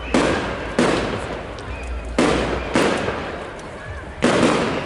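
Aerial firework shells bursting overhead: five sharp bangs over about four seconds, each followed by a long fading echo.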